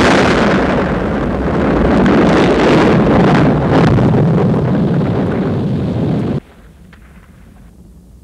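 Film-soundtrack explosion effect: a massive blast carrying on as a long, loud rush of noise with crackle in it. It cuts off abruptly about six seconds in, leaving a faint low hum.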